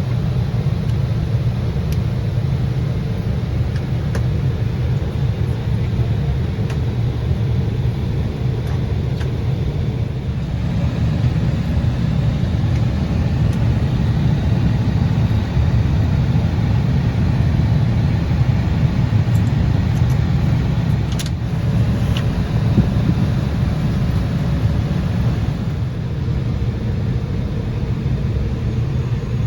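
Steady cabin noise inside an Embraer 175 regional jet in flight: a low rumble from its CF34 turbofans and the airflow, with an even hiss over it.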